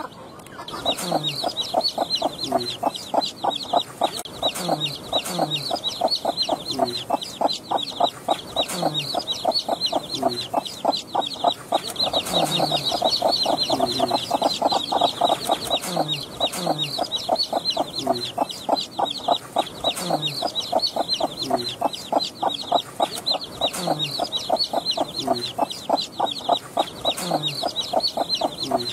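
Desi hen clucking low and repeatedly while her newly hatched chicks peep rapidly and without pause.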